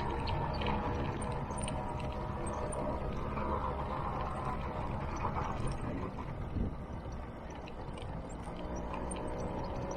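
Scooter's small engine running steadily as it rides, with rumble from the ride, easing slightly about two-thirds of the way through after a short knock.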